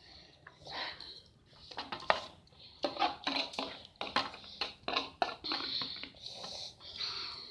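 Cutlery clinking and scraping on a plate, with eating noises, while fried noodles are eaten: irregular short clicks and brief rustling bursts.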